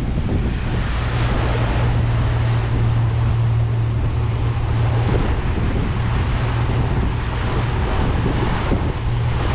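Suzuki outboard motor running steadily at trolling speed, a low steady hum, with wind on the microphone and water rushing past the hull.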